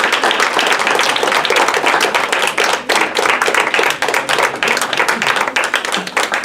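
Applause: many hands clapping densely and steadily.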